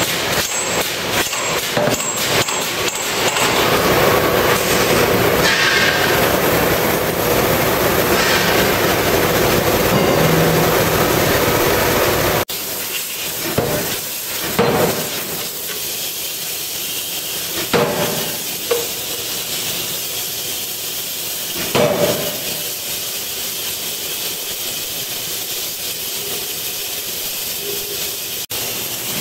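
1.35-ton Otani pneumatic forging hammer running with a steady loud hiss of air and machine noise, with quick knocks in the first few seconds. About twelve seconds in the level drops suddenly. After that come three separate heavy blows of the ram on hot steel, a few seconds apart.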